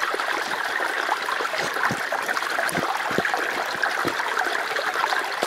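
A shallow rocky stream flowing steadily, water trickling and splashing over and between stones.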